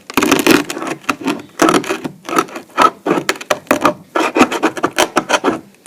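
Hand scraper scraping black paint off oak floorboards: a run of short, scratchy strokes with brief pauses between them.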